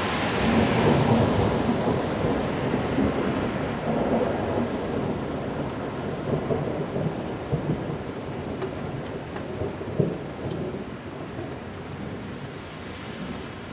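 Thunder rumbling after a lightning strike, loudest about a second in and then slowly rolling away, with rain falling throughout. A single sharp tap stands out about ten seconds in.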